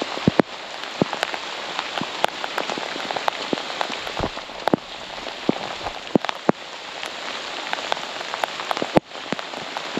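Heavy rain falling, with many sharp, irregular taps of drops hitting close by.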